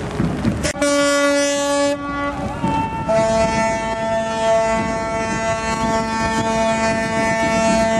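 Ships' horns sounding as the tall ship leaves harbour: a short single-note blast about a second long, then, after a brief gap, a long blast of several notes sounding together that lasts over five seconds.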